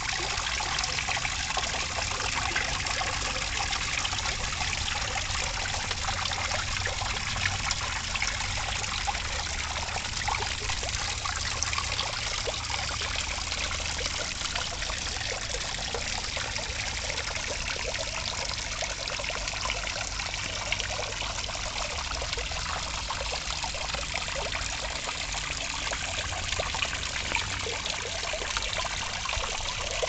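Small garden pond waterfall: a thin sheet of water spilling from a fibreglass top pond over a stone ledge and splashing steadily into the pond below.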